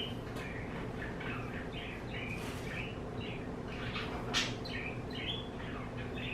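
A bird chirping: many short, high chirps in quick succession throughout.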